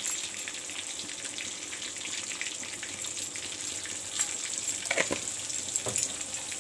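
Oil and butter sizzling in a black iron wok with bay leaves and whole spices frying in it: a steady crackling hiss, with a few sharper pops and clicks about four to six seconds in.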